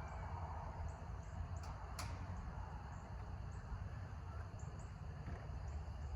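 Outdoor ambience: a low steady rumble with faint, short, high bird chirps scattered throughout, and a single sharp click about two seconds in.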